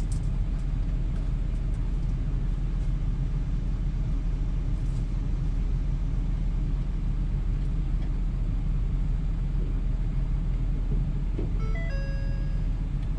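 Pickup truck engine idling steadily, a low rumble heard from inside the cab. Near the end comes a brief run of electronic chime tones at several pitches.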